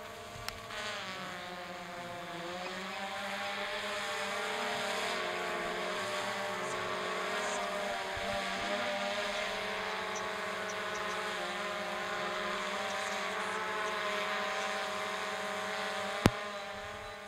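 Propeller motor of a radio-control model running steadily, a pitched tone that dips and rises as the throttle or distance changes, growing louder after a couple of seconds and fading near the end. A single sharp click sounds near the end.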